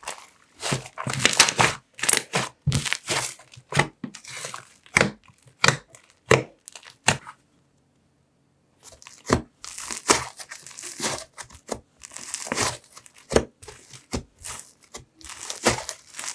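Butter slime squished, folded and stretched by hand, giving a run of crackling sizzles and small pops, with a brief silent break about halfway through.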